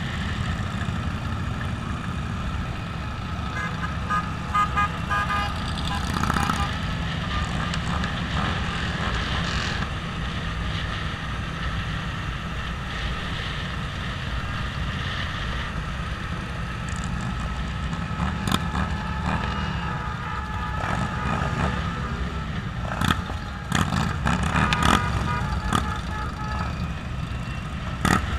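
Motorcycles running at riding pace in a large group, among them a 2015 Triumph Bonneville T100, with a steady low rumble. Vehicle horns toot several times a few seconds in and again near the end.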